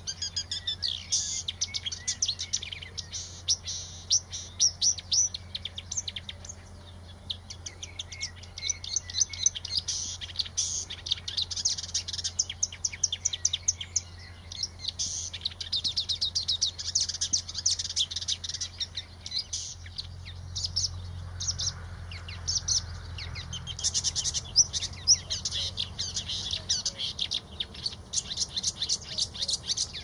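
An Acrocephalus warbler singing a long, fast song of rapid, varied high notes, broken by a few short pauses.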